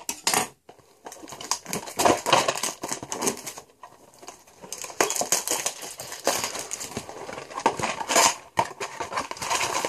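Hands tearing the plastic shrink-wrap off a cardboard box of football cards and prying the box open: a run of irregular crinkles, crackles and rustles, busier in the second half.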